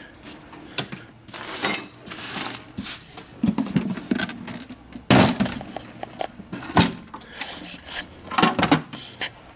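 Scattered clicks, knocks and scrapes from an old portable mechanical typewriter being handled, with the loudest knocks about 5 and 7 seconds in.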